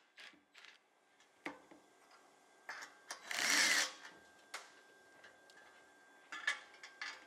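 Hand tools working metal bolts on a windmill compressor's bearing retainer as they are loosened: scattered sharp clicks and clinks, with a denser burst of under a second about three and a half seconds in.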